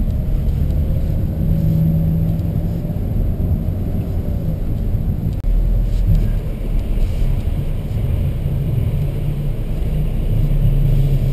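Low, steady rumble of a Mercedes-Benz E350 driving slowly, its engine and tyres heard from inside the cabin. The sound drops out for an instant about five and a half seconds in.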